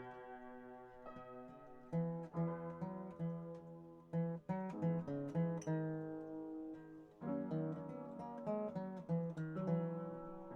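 Acoustic guitar playing a tune: plucked notes that ring out, with some strummed chords.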